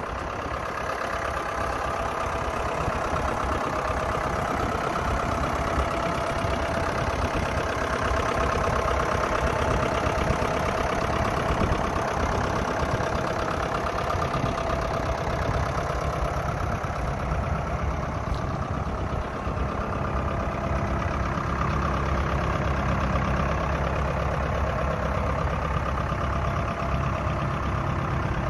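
Ford 7000 tractor's turbocharged four-cylinder diesel engine idling steadily.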